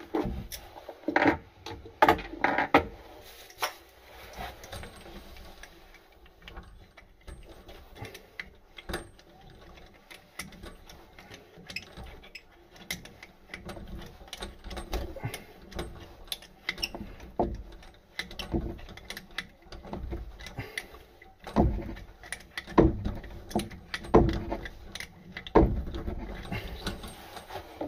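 Plumbing fittings and tools being handled and tightened: irregular clicks, knocks and rattles, with louder knocks near the start and again about three-quarters of the way through.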